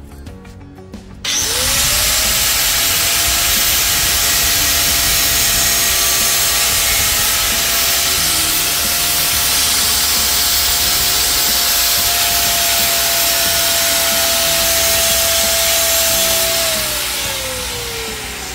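Angle grinder switched on about a second in, its motor whine rising quickly to a steady pitch as the disc grinds against the steel gate. Near the end it is switched off and the whine falls as the disc spins down.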